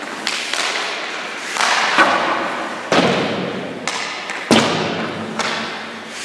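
Hockey goalie's leg pads hitting the ice as they drop into the butterfly, with skate blades scraping as they push and slide across the crease. About four sharp thuds, each trailing off into a scrape and echo.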